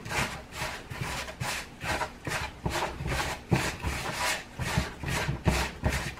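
Gloved hands rubbing and kneading a gritty, sandy bath bomb mix in a plastic bowl, in a quick rhythmic scrub of about three strokes a second.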